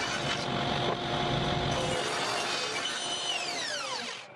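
Delta table saw ripping a 2x4 to width, with a cutting rumble under the steady motor whine for the first two seconds. About three seconds in the saw is switched off and the whine falls steadily in pitch as the blade spins down.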